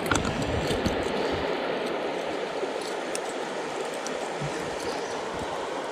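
Shallow creek water running steadily, with a few low knocks in the first second or so.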